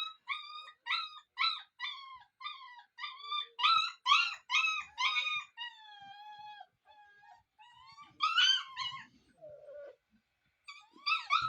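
Puppies yelping and whining: a quick string of short high-pitched yelps, about two a second, then longer falling whines after the halfway point and a few more yelps near the end.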